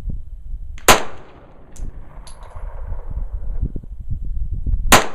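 Two pistol shots fired at a slow, aimed pace about four seconds apart, each with a short echo.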